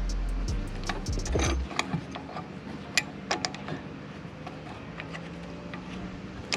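Irregular sharp metallic clicks and clinks of hand tools on brake parts being fitted and tightened. A low steady hum cuts off a little under two seconds in.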